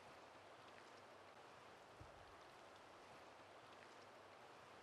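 Near silence: a faint, steady rush of river water, with one soft low thump about two seconds in.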